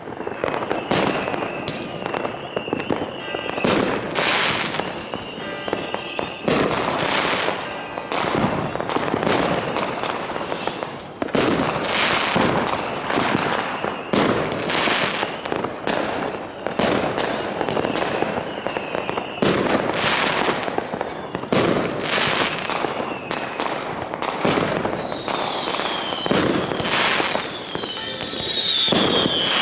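New Year's Eve fireworks: many rockets and firecrackers going off at once, a dense run of bangs with crackling between them. A high whistle holds steady in the first few seconds, and near the end several whistling rockets sound, their whistles falling in pitch.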